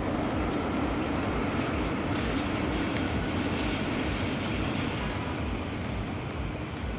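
Passenger train running along an elevated viaduct, a steady rumble of wheels on rail, with a thin high wheel squeal from about two seconds in until about five seconds in.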